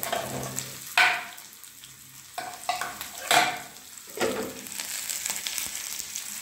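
Green chillies, grated ginger and curry leaves frying in hot oil in a small steel kadai, a steady crackling sizzle with several louder swells: the tempering (tadka) for curd rice.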